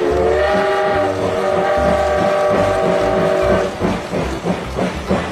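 Steam train whistle held for about three and a half seconds as a chord of several tones, rising slightly at the start. It gives way to a steady, rhythmic chuffing.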